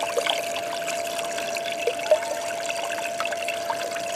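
Water swishing and trickling in a blue plastic gold pan as black-sand concentrate is panned, with small scattered drips and splashes. A steady high hum runs underneath.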